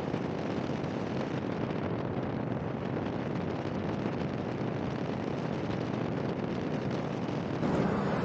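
Steady road and wind noise from a vehicle on the move, growing a little louder near the end.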